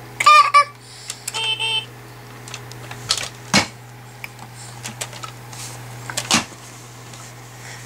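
A baby's short high squeal at the start and a brief high tone, then scattered clicks and knocks of a car toy being handled, the two loudest about three and a half and six and a half seconds in, over a steady low hum.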